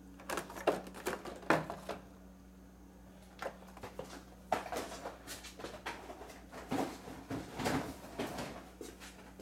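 Carded action figures being handled: plastic blister packs and cardboard backs rustling, tapping and clicking in scattered bursts as one card is put away and the next picked up. A steady low hum runs underneath.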